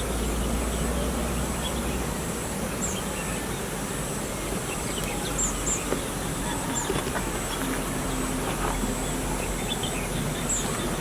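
Birds chirping: a few short, high chirps scattered over a steady background hiss and low hum.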